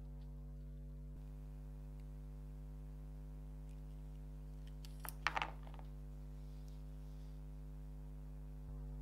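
Steady low hum throughout. About five seconds in, a brief cluster of sharp clicks comes from a small hand tube bender being worked on thin copper tubing.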